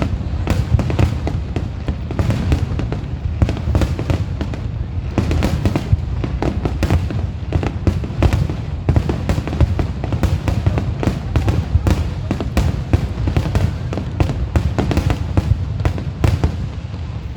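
Aerial fireworks going off in rapid, irregular succession, many sharp cracks and bangs a second over a continuous low rumble.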